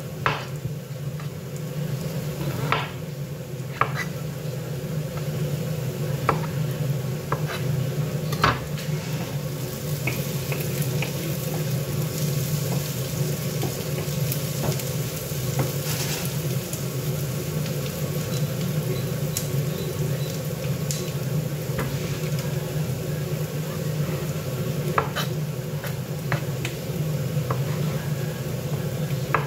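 Chef's knife slicing button mushrooms on a wooden cutting board: scattered sharp taps of the blade against the board, fewer in the middle, over a steady low hum.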